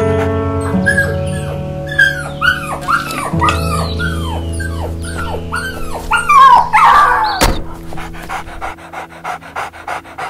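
A dog whining and yelping over background music: a run of short high calls, each falling in pitch, about two a second, then a sharp bang about seven and a half seconds in.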